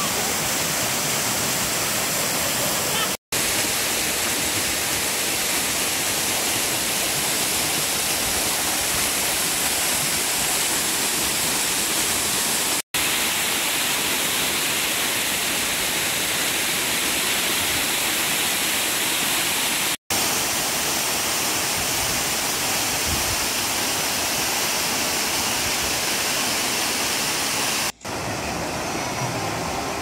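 Waterfall pouring over a rock face: a steady, loud rush of falling water. It drops out for an instant at three clip cuts. About two seconds before the end it gives way to a quieter rush of water under faint music.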